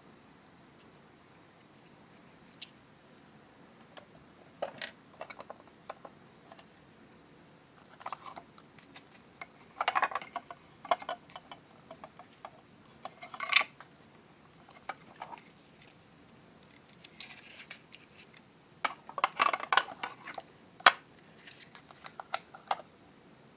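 Small hard plastic toy-kitchen parts and tiny cardboard food boxes being handled: light clicks, taps and rustles as the boxes are put into a miniature plastic refrigerator's compartments. The sounds come in scattered clusters with quiet between, loudest about ten, thirteen and twenty seconds in.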